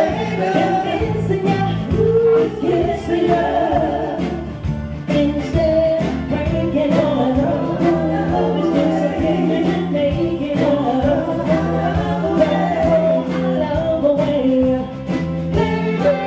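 Live soul band playing, with singers over a bass line and a steady drum beat.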